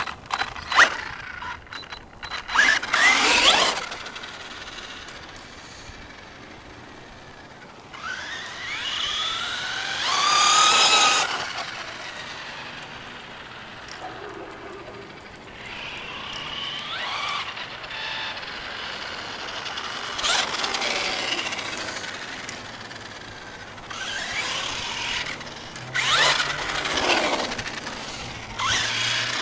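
Brushless electric motor of an FS Racing Victory X RC truck (3000kv, on a 3S LiPo) whining as the car speeds up and passes, about five times, its pitch rising and falling with each run; the loudest pass comes about ten seconds in.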